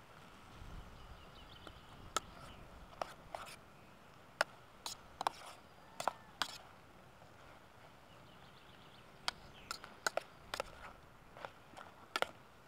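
A spoon clinking and scraping against a small metal camping pot as a chicken and tomato stew is stirred: a dozen or so sharp clinks at irregular intervals.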